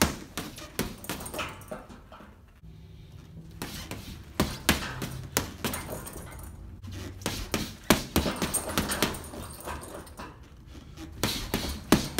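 Boxing gloves striking a heavy punching bag in fast runs of thuds and slaps, each run a multi-punch combination of jabs, body hooks, an uppercut, a hook and a cross, with short pauses between runs.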